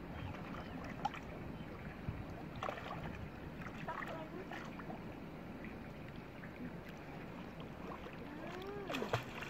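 Water sloshing and lapping as people wade and swim chest-deep through a muddy canal, with short voices calling now and then.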